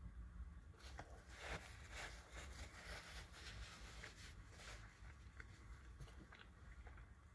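Faint chewing of a breaded, fried mozzarella cheese stick, with soft crunching and mouth sounds from about a second in that die away after about five seconds.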